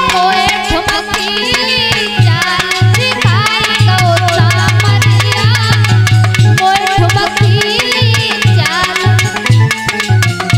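Instrumental interlude of a Hindi folk bhajan. Hand drums play a fast rhythm with a deep bass thump under a quick, ornamented melody line that slides up and down.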